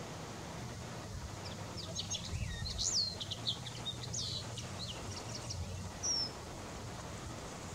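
Male common linnet singing: one twittering phrase of quick, varied high notes and short whistled sweeps, running for about five seconds from a second and a half in.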